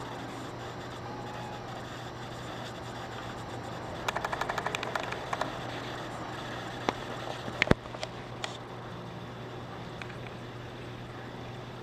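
Small clicks and knocks from a kitten playing on a carpeted cat tree: a quick run of about ten clicks about four seconds in, then a few sharp knocks, the loudest near eight seconds, over a steady low background hum.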